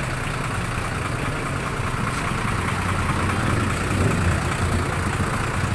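Large ex-military cargo truck's engine idling steadily, a low even hum.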